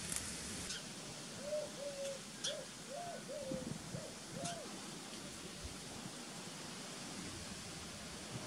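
A bird calling: a run of about seven short, soft hooting notes at a low pitch, spread over about three seconds in the first half, over a steady outdoor hiss with a few faint ticks.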